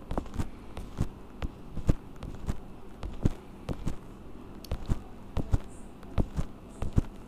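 A run of soft, irregular knocks or taps, about three a second, over a faint steady low hum.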